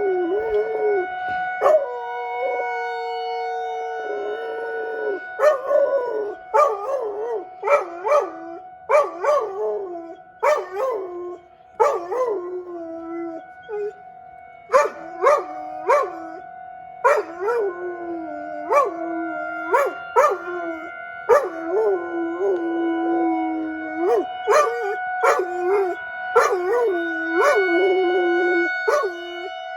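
Labrador retriever howling along with a tornado warning siren. A long drawn-out howl comes first, then from about five seconds in a run of short yowls that fall in pitch with sharp yips, roughly one a second. Under them the siren sounds one steady tone.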